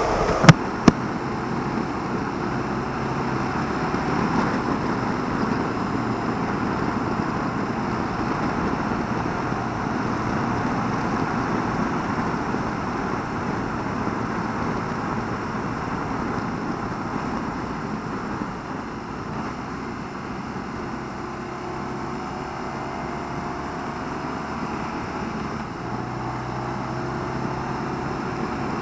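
BMW R1200RT flat-twin engine running steadily at road speed, mixed with heavy wind and road rush. Two sharp clicks come a little under a second in.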